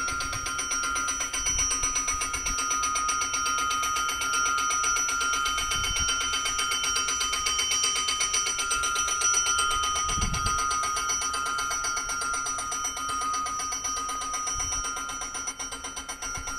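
Railway station's electric train-announcing bell ringing continuously with rapid strokes, signalling that a train from Mendrisio is approaching.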